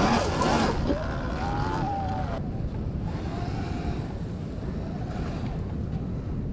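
A Sur-Ron X Light Bee electric dirt bike's motor whines with a wavering, rising pitch under throttle, with wind rushing over the microphone. About two and a half seconds in, the sound changes abruptly to steady wind noise on the microphone, with only a faint motor whine from a bike riding up a distant dune.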